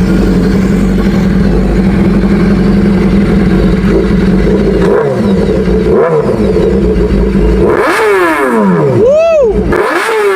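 BMW S1000 RR inline-four sportbike, fitted with an SC-Project exhaust, idling steadily and then revved. Two short throttle blips come about halfway through, then harder revs near the end, the sharpest climbing high before dropping back.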